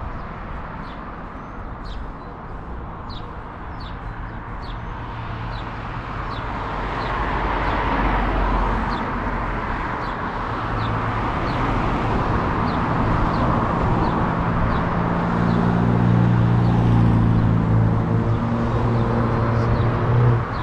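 Road traffic going by, then a motor vehicle's engine running close by, its hum growing louder through the second half. A bird chirps repeatedly over it.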